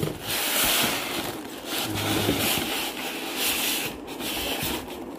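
Hands unpacking an egg incubator: rustling and rubbing of the packaging, rising and falling in several swells.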